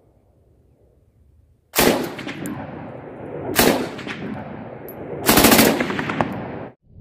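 Short-barrelled RPD light machine gun (7.62×39 mm) firing: a shot about two seconds in, another about a second and a half later, then a short burst of several rounds, each followed by a long rolling echo. The sound cuts off suddenly near the end.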